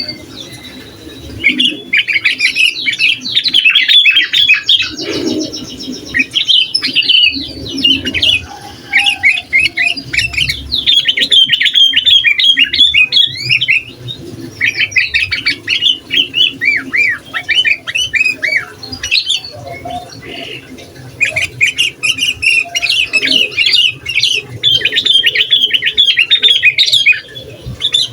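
Sooty-headed bulbul singing in full voice: rapid runs of chirping, bubbling notes in bursts of several seconds, with short pauses between.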